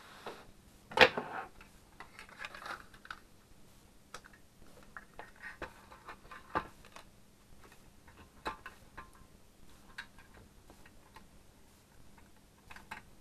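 Sheet-metal shield and LCD panel being handled and fitted together: scattered light clicks, taps and small knocks of metal and plastic, with a louder clatter about a second in.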